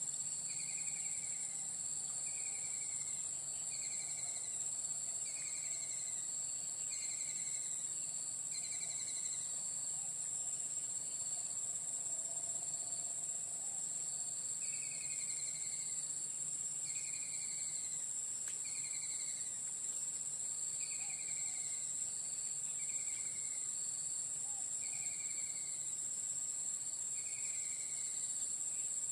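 Steady high-pitched insect drone. Over it a short falling call repeats roughly once a second, pausing for a few seconds midway.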